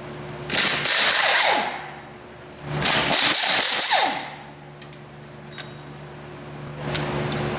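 Pneumatic air ratchet running in two bursts, about a second and a second and a half long, backing out the power steering pump mounting bolts. A few sharp metal clicks follow near the end.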